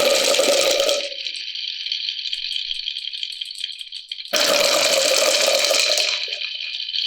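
Marbles rolling and clattering down a handmade course of rain gutters and wooden rails: a steady rattle of many small clicks, with two louder rumbling runs, one dying away about a second in and another from about four to six seconds in.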